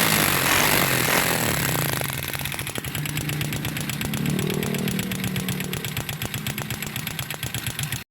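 Freshly overhauled Honda XRM125 single-cylinder four-stroke motorcycle engine running, louder for about the first two seconds, then settling into an even idle.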